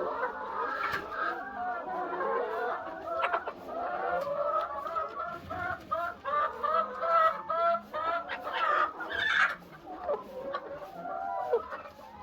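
A large flock of laying hens clucking and calling, many short calls overlapping.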